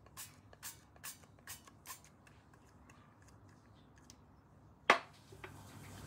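Oil mist sprayer puffing oil onto an air fryer basket: about five quick sprays, a little under half a second apart. Near the end comes a single sharp knock, the loudest sound, then a faint steady hiss.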